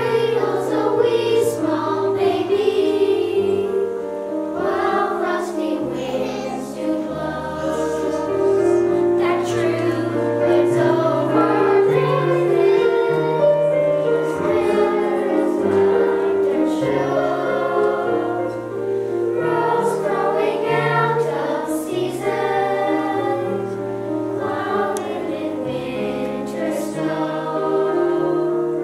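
Children's choir singing a song in several voices, over an accompaniment that holds low notes beneath them.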